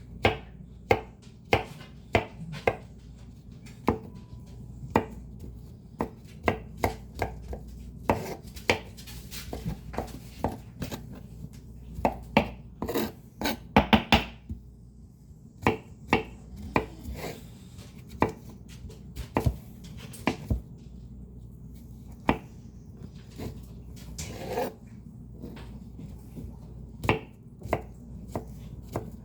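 Leafy greens being chopped: sharp, irregular chops, one or two a second, with a quick run of chops about twelve to fifteen seconds in. A fan hums steadily underneath.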